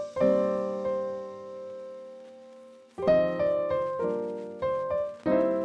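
Background piano music: a chord struck just after the start and left to fade, then a quicker run of notes and chords from about halfway through.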